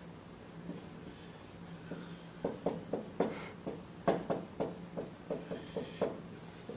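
Dry-erase marker squeaking and tapping on a whiteboard as words are written: a quick run of short strokes starting about two and a half seconds in, over a faint steady hum.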